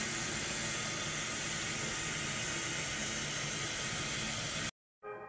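Coffee maker running with a steady hissing rush of water or steam, cutting off suddenly near the end.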